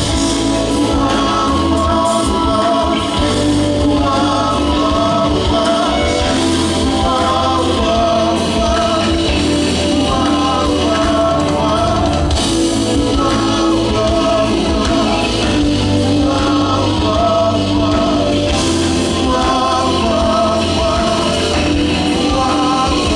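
Live soul band playing steadily with wordless vocals over it, likely sustained 'whoa' ad-libs or backing harmonies.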